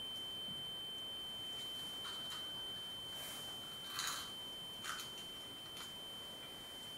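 A steady high-pitched ringing tone, one pure note held without change, from the play's sound design. A few short, soft rustling noises come and go about three to five seconds in.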